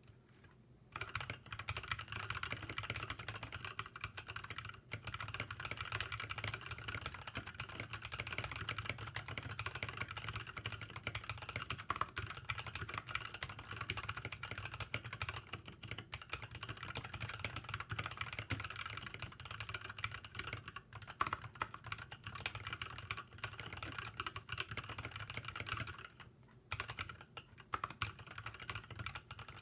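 Steady typing on a KBD75 mechanical keyboard with NovelKeys Cream linear switches, fitted with lubed 60g bottom-out springs and PBT Cherry-profile keycaps: a dense run of keystroke clacks that starts about a second in, with a brief pause near the end.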